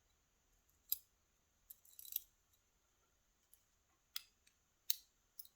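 Small, sharp clicks of tiny brass lock pins from a disassembled pin-tumbler lock being handled and set down one by one, about seven light clicks spread irregularly with a quick cluster about two seconds in.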